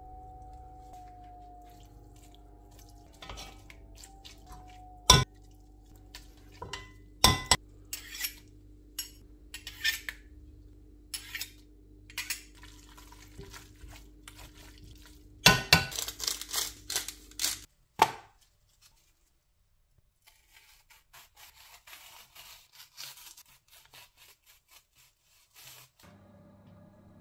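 Utensils clinking and scraping against a pot as cooked chicken is tipped in and shredded, with a few sharp clinks and a busy clatter about 16 s in, over a steady hum. After a short silence, faint soft knife cuts on a cutting board.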